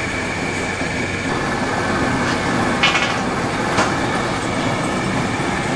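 Steady machinery noise with a faint high whine, and two short knocks about three and four seconds in.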